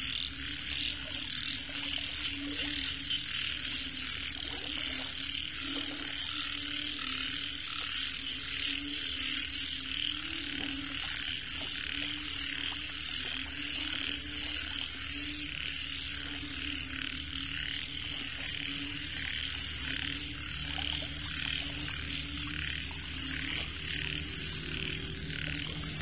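A dense chorus of rice-field frogs calling: a steady mass of many overlapping fast-pulsed calls, with a lower layer of croaks beneath.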